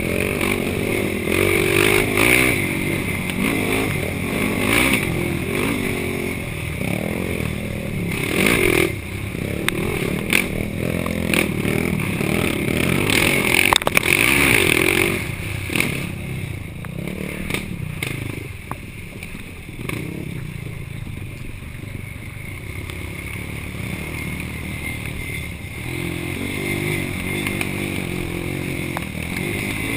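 Yamaha YFZ450 quad's single-cylinder four-stroke engine revving up and down hard under race load, with knocks and rattles from the machine over rough ground. The revs drop and it runs quieter for a while past the middle, then pick up again near the end.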